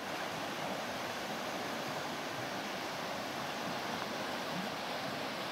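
Shallow river rapids rushing steadily over a rocky bed.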